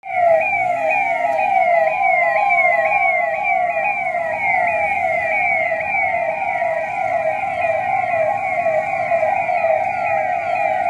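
Police vehicle sirens sounding together: a fast, repeating yelp-like sweep over a slower wail that rises and falls over a few seconds. The sound is loud and steady throughout.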